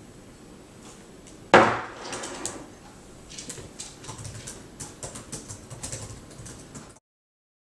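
A single thump on a wooden desk about a second and a half in, then irregular clicking of laptop keys being typed on; the sound cuts off suddenly about a second before the end.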